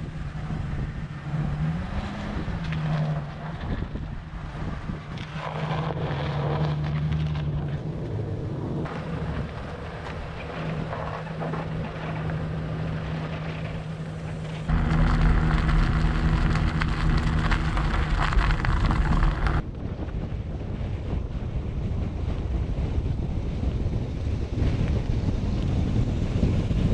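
Pickup truck driving across lake ice while towing an ice house, its engine humming steadily with road noise from the tyres and wind buffeting the exterior-mounted microphone. The engine pitch rises briefly about two seconds in, and the engine gets louder for a few seconds about two-thirds of the way through.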